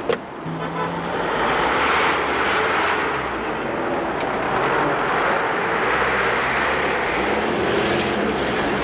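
A car's engine and road noise, with a short knock right at the start. The noise swells about a second in and then runs steadily.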